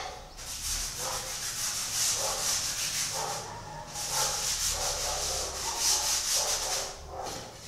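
Paintbrush scrubbing paint onto canvas in rapid back-and-forth strokes, pausing briefly about halfway through.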